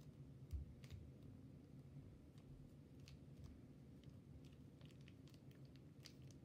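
Faint, scattered clicks and small squishing crackles of slime being worked and scraped out of its plastic tub, with one soft thump about half a second in.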